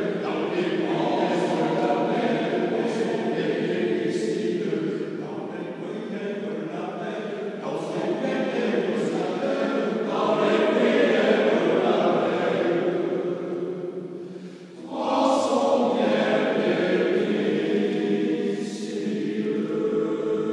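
An unaccompanied choir singing together in held, sustained chords, in the echoing space of a stone church. About three-quarters of the way through the voices briefly drop away, then come back in loud.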